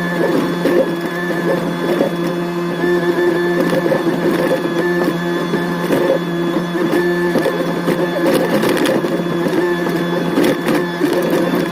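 Excavator running under steady load, with a constant mechanical whine and frequent irregular clanks and knocks while it works.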